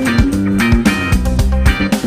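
Background music: plucked guitar and bass over a steady beat.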